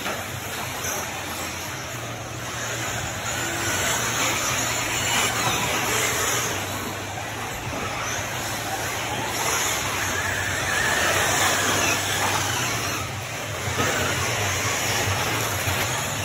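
Electric 1/8-scale RC truggies racing on a dirt track: a continuous wash of motor whine and tyre noise, with faint whines rising and falling as trucks pass, over a steady low hum.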